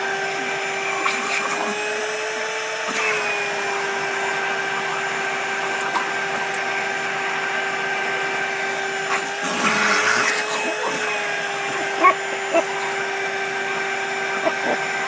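Vacuum cleaner motor running with a steady whine that rises slightly in pitch twice, once about two seconds in and again around ten seconds. A brief rushing burst comes around ten seconds, and two sharp knocks near twelve seconds.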